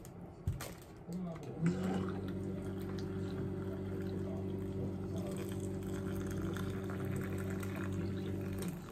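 Electric hot-water pot dispensing hot water into a ceramic mug: the pump runs with a steady hum under the pouring water. It starts about two seconds in and stops shortly before the end.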